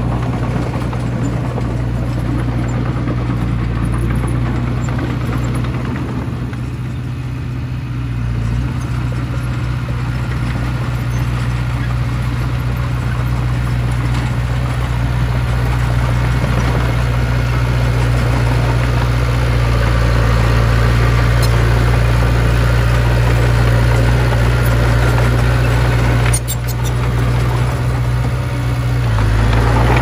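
Komatsu D20P small crawler bulldozer's diesel engine running steadily with a deep, even note as the dozer pushes and levels dirt with its blade.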